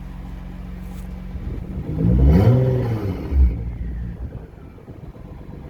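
Twin-turbo Nissan GT-R engine idling in park, given a single throttle blip about two seconds in: the revs rise and fall back within about a second and a half. Little turbo whine is audible over the engine.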